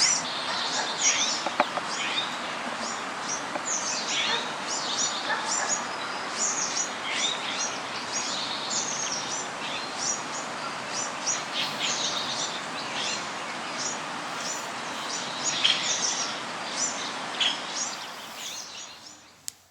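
Small birds chirping continuously in quick, high-pitched twitters over a steady background hiss. The sound fades away near the end.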